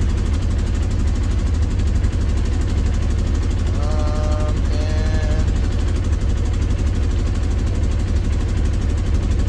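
Polaris Sportsman 570 ATV's single-cylinder engine idling steadily shortly after a cold start.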